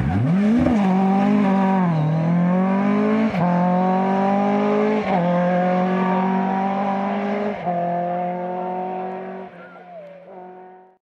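Rally car engine accelerating hard up through the gears, its note climbing and then dropping sharply at each of several upshifts. It fades into the distance near the end.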